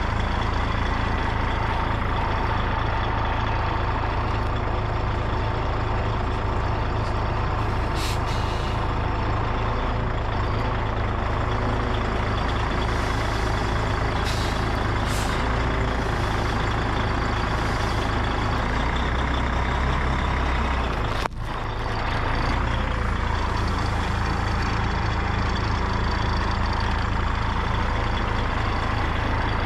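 Truck engine idling steadily, with a few short hisses.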